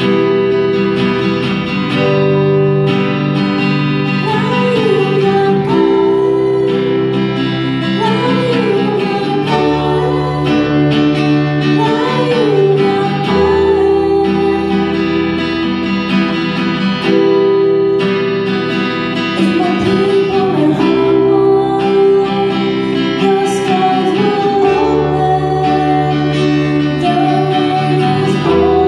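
Live worship music: a keyboard holds sustained chords, with guitar, under a woman's singing voice whose wavering melodic line rises and falls over them.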